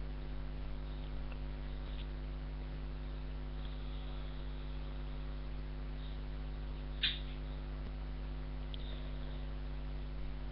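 Steady electrical mains hum picked up by a webcam microphone, with a single short click about seven seconds in.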